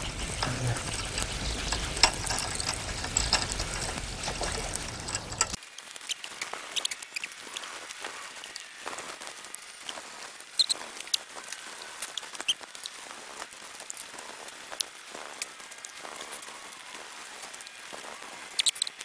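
Fishing rods and reels being handled as the lines are reeled in, with scattered small clicks and light patter. A rougher rumbling noise cuts off abruptly about five seconds in.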